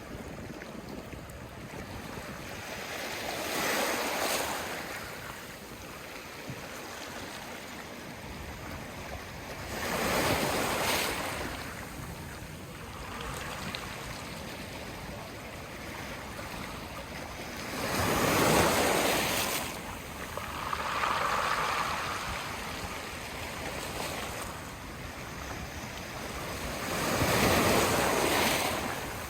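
Sea waves washing onto the shore over a steady hiss of water. Four large surges swell and fade about every six to eight seconds, with a smaller one between the third and fourth.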